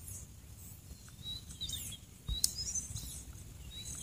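Birds chirping faintly, a few short high calls scattered through, over a low outdoor rumble, with a soft click a little past two seconds.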